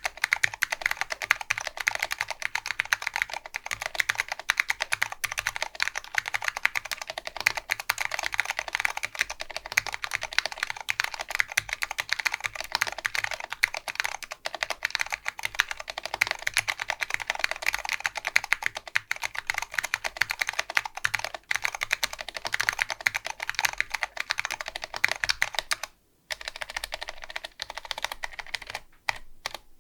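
Mechanical keyboard with new-old-stock Alps SKCM Brown switches on a POM plate, with typewriter keycaps, being typed on fast in a steady run of keystrokes. Near the end the typing stops briefly, then single keys are pressed more slowly with pauses between them.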